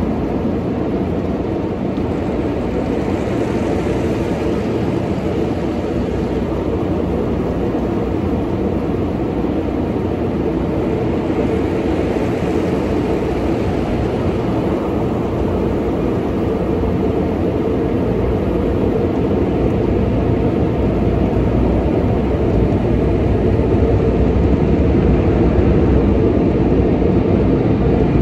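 Automatic car wash machinery heard from inside the car: a loud, steady rush of water sprays and equipment washing over the body, a little louder near the end.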